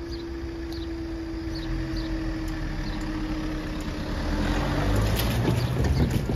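Level-crossing barrier rising, with a steady hum that stops about five seconds in as the barrier finishes going up. Then a car's engine grows louder as it pulls onto the crossing.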